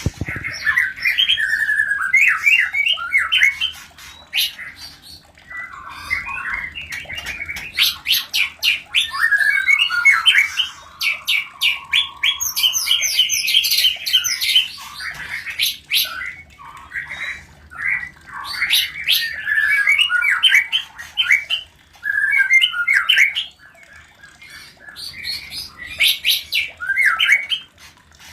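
White-rumped shamas calling and singing during mating: a near-continuous run of rapid, varied chattering phrases mixed with harsh squawks, with a few short pauses.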